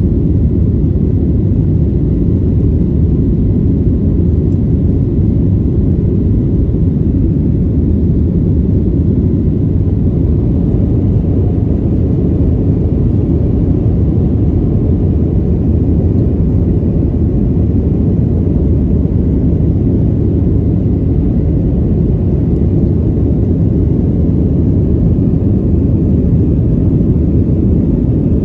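Steady low rumble of a Boeing 737-900 jet airliner in flight, heard from inside the cabin: engine and airflow noise holding even throughout.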